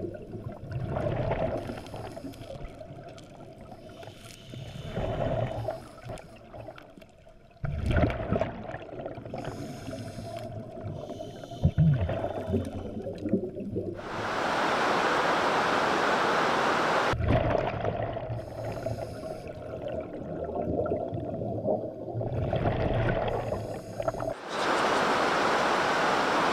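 Water around scuba cave divers: underwater bubbling and gurgling, then stretches of steady rushing noise in the second half.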